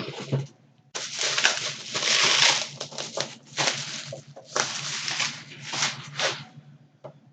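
Packaging being handled as a mystery box is unpacked: rustling and crinkling in several bursts with short pauses.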